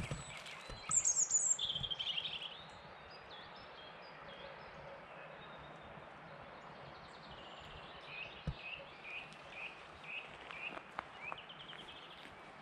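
Wild birds singing: a loud high trill about a second in, then a run of short repeated chirps in the second half ending in another brief trill, over a steady background hiss.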